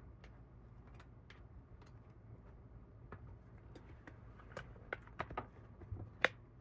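Light clicks and taps from handling a plastic phone case and its packaging. They are scattered at first, come faster over the last couple of seconds, and the sharpest click comes near the end.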